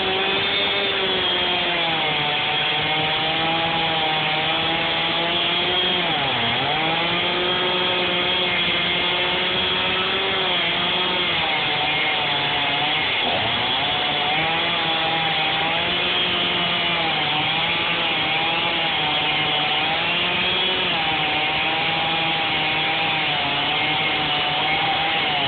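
Chainsaw running at high speed while cutting into a tree trunk, its engine note dipping sharply twice as it bogs under the load of the cut and then recovering.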